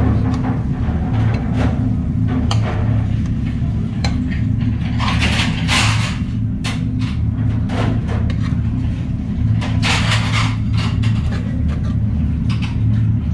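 Steady low hum of commercial kitchen machinery, with scattered scrapes and clinks of a metal spoon against a frying pan as fried fish pieces in bhuna sauce are served onto a plate.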